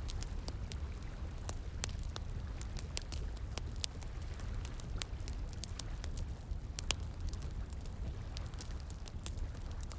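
Wood fire crackling, with sharp irregular pops and snaps several times a second, over a steady low rush of flowing water.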